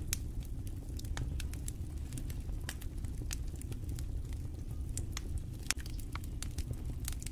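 Fire crackling in a clay stove under an iron griddle: irregular sharp crackles and pops over a low steady rumble.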